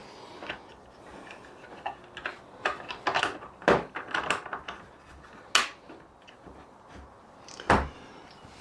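Irregular clicks and knocks of a folding tonneau cover's hard panels and clips being handled and fitted on a pickup bed, with three sharper knocks about two seconds apart in the second half.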